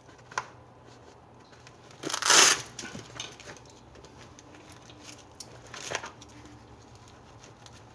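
Nylon Molle sheath and webbing strap being handled and threaded: a light click near the start, then short fabric rustles, the loudest about two seconds in and another around six seconds.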